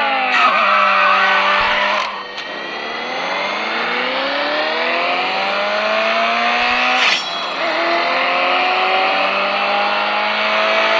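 Racing-car engine sound played through a phone's single loudspeaker, the engine pitch climbing steadily and dropping back twice, at about 2 and 7 seconds in, like gear changes. There is almost no bass.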